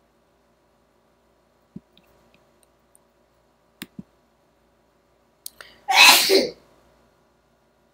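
A few light clicks, a double click among them, then one loud human sneeze about six seconds in.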